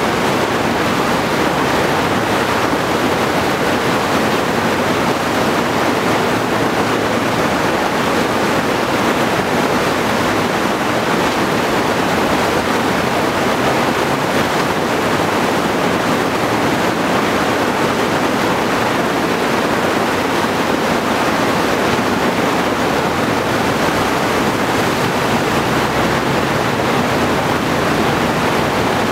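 Steady, unbroken rush of whitewater from a standing river wave breaking over a whitewater-park feature, with the river flowing at about 2100 cfs.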